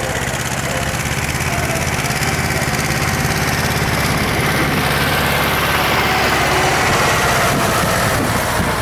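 A motor vehicle's engine idling steadily close by, a constant low hum.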